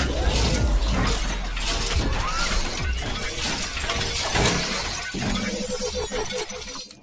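Sound effects of an animated intro: a dense run of sharp crashing hits and noisy sweeps over a deep, steady bass rumble, with music. About five seconds in, a buzzing pitched effect comes in as the hits thin out.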